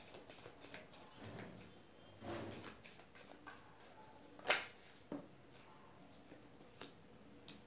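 A tarot deck being shuffled by hand: quiet rustling and light card clicks, with one sharper snap of the cards about four and a half seconds in and a softer tap about half a second later.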